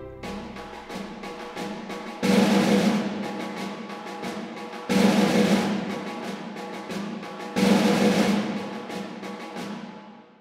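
Percussion music: rapid drum strokes with three loud hits about two and a half seconds apart, each fading away before the next, dying out near the end.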